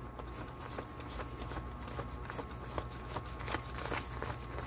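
Paper peso banknotes being counted by hand, a string of irregular crisp rustles and flicks as bills are thumbed off the stack one by one.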